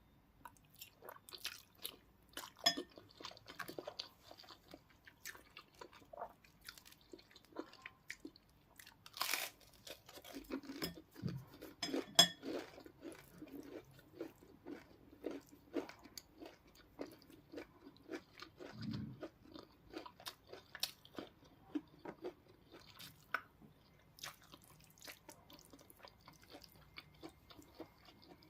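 Close-miked eating: crunchy bites and chewing of fried chicken, with the loudest crunches about a third of the way in.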